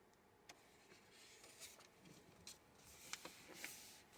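Faint rustling of paper pages being handled and turned, with a few soft ticks.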